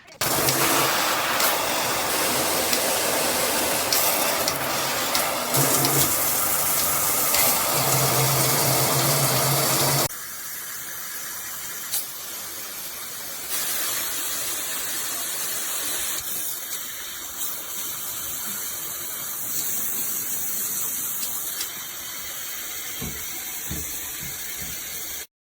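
Water spraying from a fixed shower head, a steady hiss. It turns abruptly quieter about ten seconds in and cuts off near the end.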